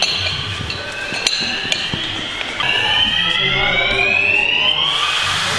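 Building evacuation alarm sounding a rising whoop tone that restarts about every two and a half seconds, with two sharp knocks about a second and a half in.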